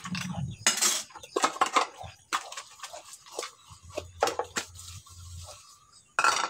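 Dishes being washed by hand in a sink: ceramic bowls and plates clinking against each other and being scrubbed with a soapy sponge, in irregular clatters and rubbing.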